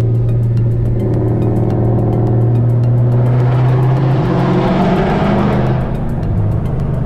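Car engine heard from inside the cabin, running steadily, then revving up as the car accelerates from about three seconds in, rougher and louder for a couple of seconds before easing off near the end.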